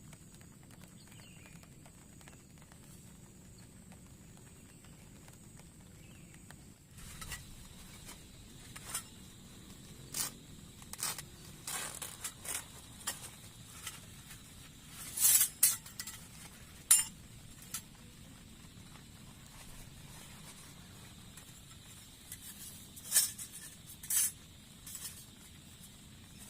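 A faint steady background, then, from about a quarter of the way in, a series of separate clinks and knocks of small hard objects being handled, the loudest around the middle and again near the end.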